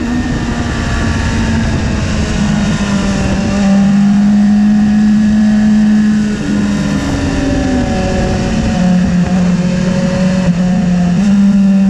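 BMW S1000RR inline-four sportbike engine running hard at high revs, its note stepping down and up several times as the rider eases off and gets back on the throttle through the bends, with heavy wind rush over the microphone.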